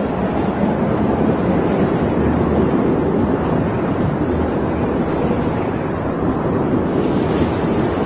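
Steady, loud rushing rumble like a strong wind, with no sharp bang: the simulated rumble and blast wind of a nuclear explosion's mushroom cloud and shockwave.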